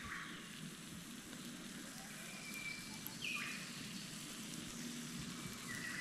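Low campfire of embers hissing and faintly crackling under fish being slow-smoked, with a short falling whistle about three seconds in.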